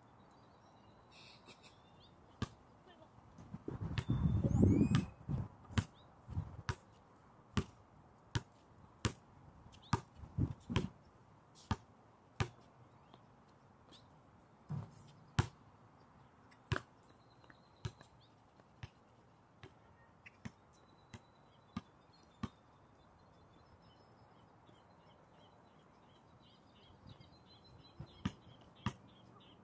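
A basketball bouncing on an outdoor hard court, sharp single bounces about once a second, sometimes faster and sometimes with longer gaps. A louder low rumble swells about four seconds in. Faint bird chirps come and go in the background.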